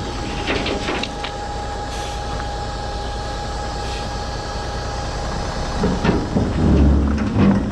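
A truck's engine running with a steady whine while a load of shot rock is dumped; near the end the rock slides out in a heavy rumbling, clattering rush.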